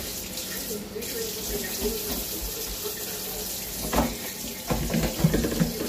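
Kitchen tap running water into the sink, with a few short knocks from about four seconds in.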